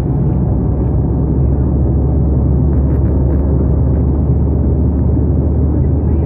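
Steady drone of a jet airliner's cabin at cruise: engine and airflow noise heard from inside, a low rumble with a thinner hiss above it.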